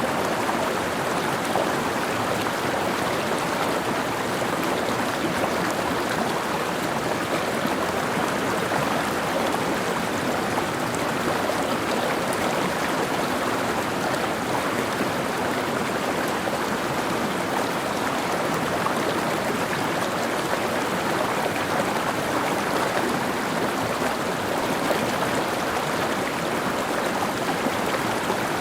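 Mountain stream: water running and splashing over rocks in a steady, even rush.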